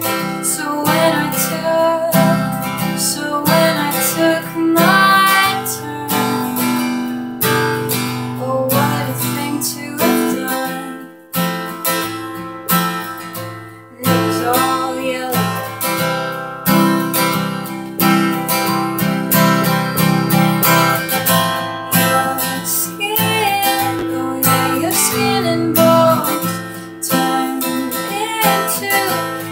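Steel-string cutaway acoustic guitar strummed in a steady chord pattern, with a woman's singing voice over it in places.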